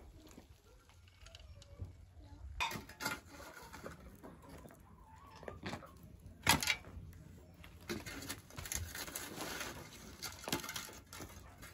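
Knocks and clatter of a charred log and a shovel against a stone fire pit, then the shovel scraping through embers and ash, with one sharp knock about halfway through. Faint bird calls at the start.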